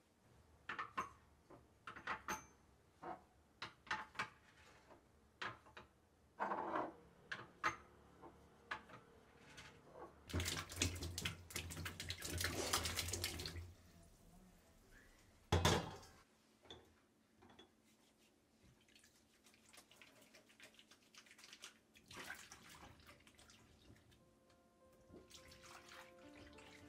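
Glass jars clinking and knocking as they are set down on a stainless-steel sink, then water pouring into the sink for about three seconds, a hard knock, and soft splashing as mandarins are swished by hand in a sink full of water.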